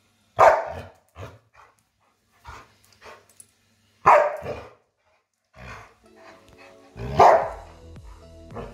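Dog barking: three loud single barks spaced about three seconds apart, with shorter, quieter barks between them. Background music comes in about six seconds in.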